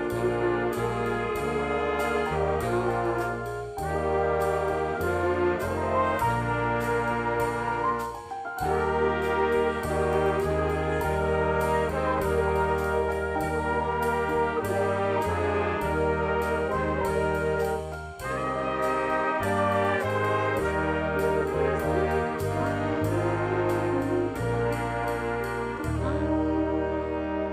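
Jazz big band playing an instrumental piece: trumpets and trombones carry the melody over a moving bass line and a steady beat, with short breaks between phrases.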